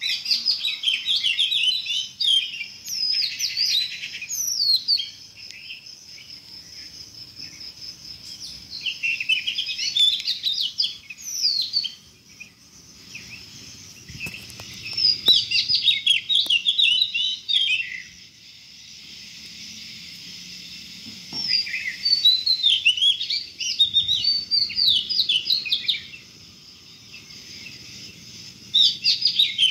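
Birds chirping and twittering in rapid bouts of high notes, with short pauses between bouts, over a faint steady high buzz.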